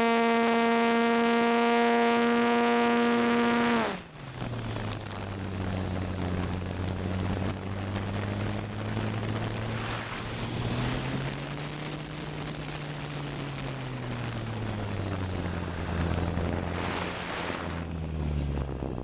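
Electric motor and propeller of a ParkZone T-28 Trojan RC plane, heard from the onboard camera. A loud steady whine drops sharply in pitch and level about four seconds in as the throttle is cut back. A lower hum follows, drifting up and down in pitch under wind rush.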